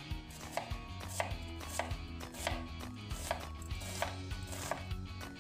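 Knife chopping vegetables on a cutting board: a steady run of sharp knocks, about two a second.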